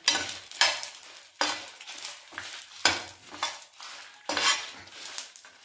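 Perforated steel spoon scraping and stirring dry red chillies around a frying pan as they roast. The strokes come about one a second.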